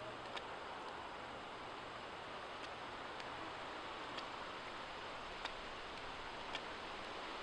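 Puukko knife shaving the ends of a small wooden toggle, a few faint ticks of the blade on the wood, over the steady rush of a small stream.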